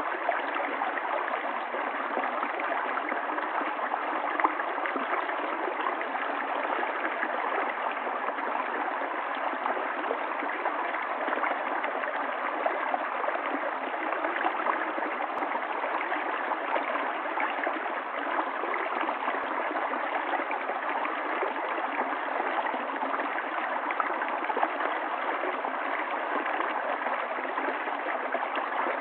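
Stream water flowing steadily, an even, unbroken rush of running water.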